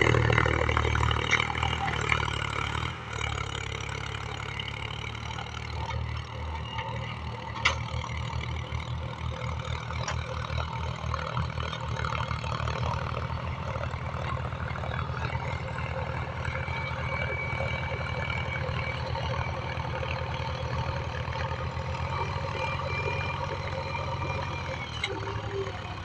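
Heavy diesel engine of a JCB backhoe or tractor running steadily, a little louder for the first three seconds, with one short sharp click about eight seconds in.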